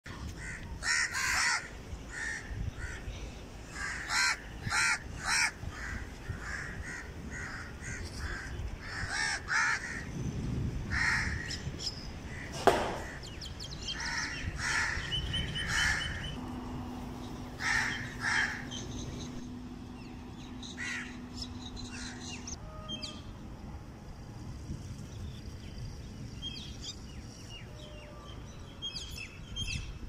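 Crows cawing again and again, many calls close together in the first half and fewer toward the end. A single sharp knock about halfway through is the loudest sound, and a steady low hum runs for several seconds past the middle.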